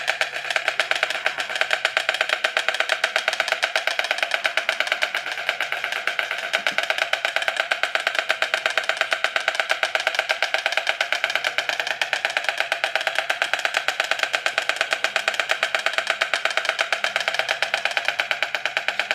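Two white storks clattering their bills in a duet: a rapid, steady run of hollow wooden clacks that keeps going without a break.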